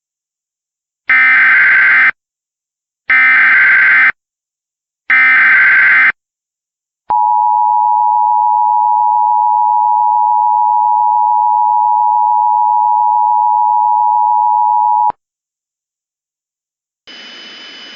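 Emergency Alert System tones: three one-second bursts of warbling SAME header data, about a second apart, then the two-tone attention signal (853 and 960 Hz together), a steady shrill tone held for about eight seconds that cuts off sharply. Together they mark the start of a new alert.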